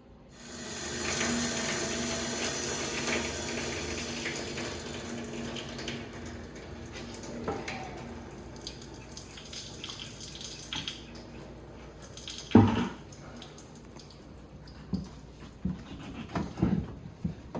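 Water rushing out as the pressure is bled from a whole-house water filter system with its inlet valve shut off, loud at first and dying away over several seconds as the pressure drops. A single sharp knock about twelve seconds in, then scattered small clicks and knocks.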